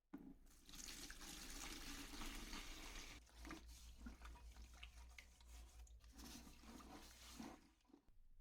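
Faint hiss of running water, with scattered small knocks and clicks. It starts suddenly at the outset and fades out near the end.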